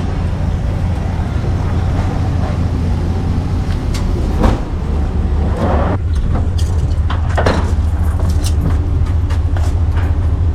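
Vehicle engine and road noise heard from inside the cab as it drives slowly into a scrap yard: a steady low rumble with a few brief knocks and rattles.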